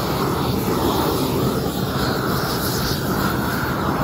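Propane weed-burner torch (a 340,000 BTU Harbor Freight unit) burning at full flame: a steady, loud rushing of burning gas.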